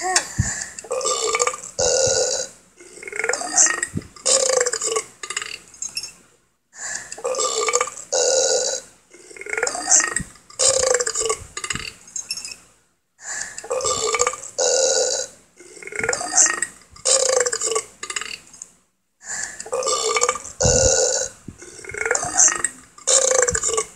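Loud burps, one after another. The same run of several burps repeats about every six and a half seconds, with a short pause between runs.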